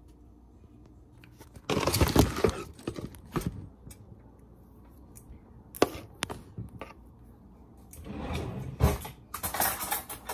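Kitchen items being handled and set down on a countertop: a loud rattling clatter about two seconds in, a few single knocks, then more clattering near the end.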